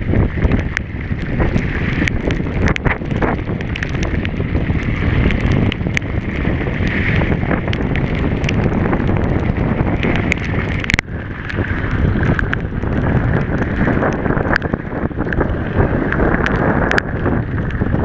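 Wind rushing over the camera microphone as a mountain bike descends fast over rough gravel and dirt, with the bike rattling and many sharp knocks from the tyres and frame hitting bumps and stones.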